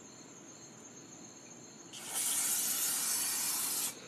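A loud, steady spray hiss lasting about two seconds, starting about halfway in and cutting off suddenly: an aerosol can being sprayed at a spider, which keeps moving. Crickets chirr steadily underneath.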